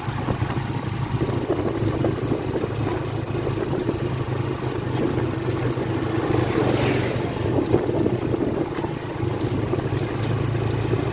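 Motorcycle engine running steadily on the move, with road and wind noise. A brief rushing swell comes about six to seven seconds in.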